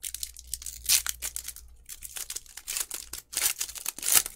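Foil wrapper of a Donruss Optic basketball trading-card pack torn open and crinkled by hand: a run of crackling rips and rustles, loudest about a second in and again near the end.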